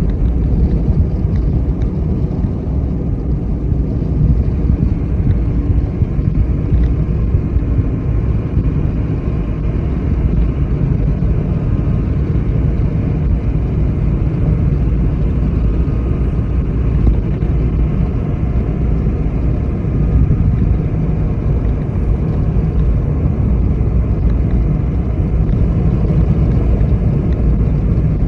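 Car driving along a road: a steady low rumble of tyres and engine.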